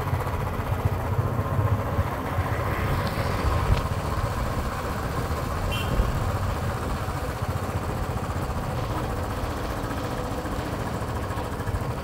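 Motorcycle engine running steadily while riding along a road, with a constant low rumble.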